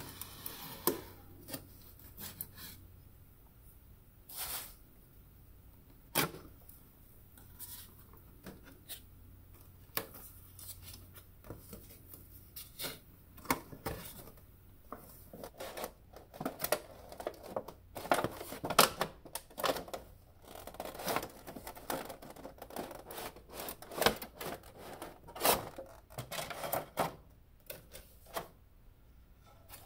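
Hands unboxing a cardboard toy box: tape and plastic film picked at, peeled and crinkled, and cardboard flaps pulled open. A run of irregular clicks, taps and rustles, sparse at first and much busier in the second half.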